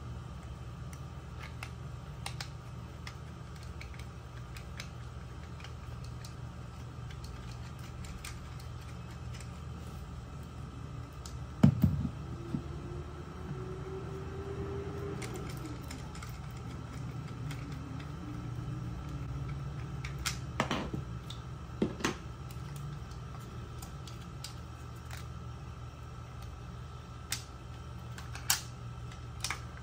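Scattered plastic clicks and snaps from a GoPro Hero 11 protective waterproof housing being handled, its latch and mount worked by hand. The sharpest snap comes about twelve seconds in, with a few more later. A steady low hum runs underneath.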